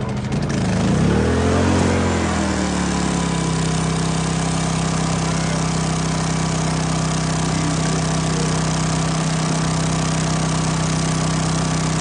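Small gasoline engine running with a steady drone. About half a second in its speed dips and swings back up, then it settles into an even run, as its choke is taken off.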